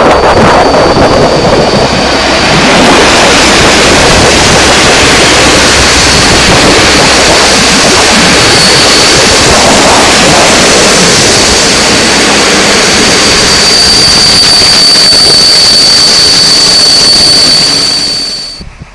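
Intercity passenger train hauled by an electric locomotive passing close at speed: a loud, steady rush of wheels on rails and moving air, with a thin high whine running through it. The sound cuts off suddenly near the end.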